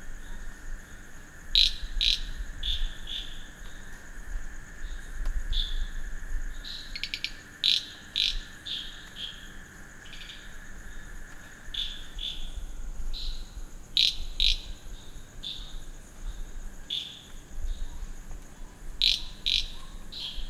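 Night chorus of frogs and crickets after rain: frogs calling in short repeated notes, some loud and close, over a steady high insect trill. A lower steady trill stops about twelve seconds in.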